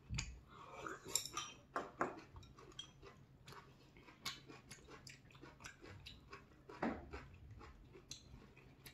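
Faint, close-up eating sounds: chewing of soft cooked napa cabbage from a mille-feuille nabe hot pot, with many short wet mouth clicks and occasional taps of chopsticks on ceramic bowls.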